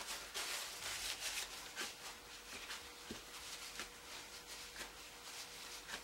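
Crumpled paper tissue rustling and dabbing on wet watercolour paper, blotting paint out of the sky. A dense run of soft scratchy rustles in the first second and a half, then lighter dabs about twice a second.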